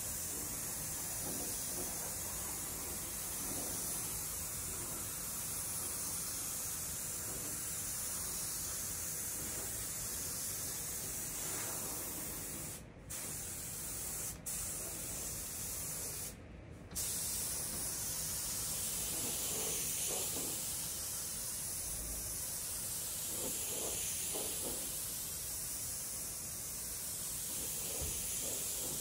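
Anest Iwata gravity-feed spray gun hissing steadily as compressed air atomises red single-stage paint onto a car panel. The hiss cuts out briefly three times near the middle.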